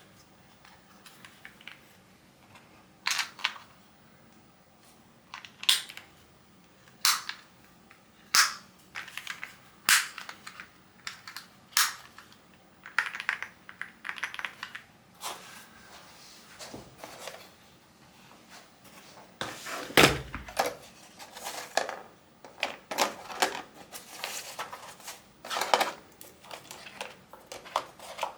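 Unboxing a mechanical keyboard: irregular sharp clicks, knocks and rustling as the packaging and parts are handled, with one heavier thump about two-thirds of the way through.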